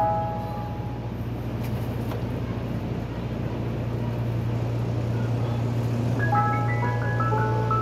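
Mister Softee ice cream truck's chime jingle playing over its loudspeaker. The tune breaks off about half a second in and starts again about six seconds in, over a steady low hum from the truck's engine.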